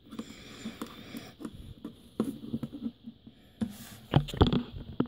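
A small screwdriver clicking and scraping against the plastic casing of a Sony MZ-N420D MiniDisc Walkman as it is opened up, with a few louder knocks about four seconds in.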